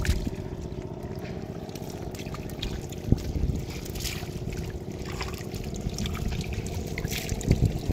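Shallow muddy water sloshing and trickling, with scattered small splashes, as hands work through it picking fish from a net, over a steady low hum.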